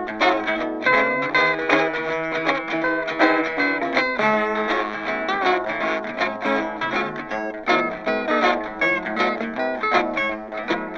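Background music led by plucked guitar, with quick, continuous picked notes.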